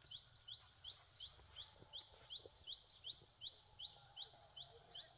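A bird calling with a faint, rapid series of short, high, upward-sweeping chirps, evenly repeated about three times a second.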